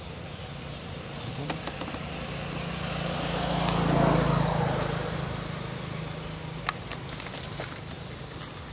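A motor vehicle passing by: its engine hum and noise swell gradually to a peak about four seconds in, then fade away.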